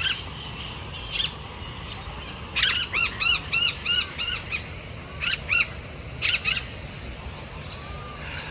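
A bird calling with a quick series of about six harsh, arched calls, followed by two more short pairs of calls.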